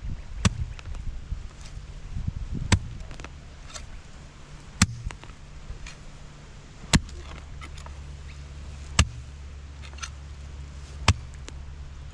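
Six sharp strikes about two seconds apart, a hand tool chopping into the ground while edging a garden bed, over a low steady hum.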